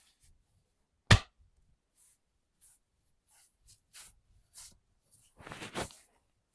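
Hands massaging skin and hair: soft, short brushing strokes, one sharp loud click about a second in, and a longer, louder crackling rub near the end.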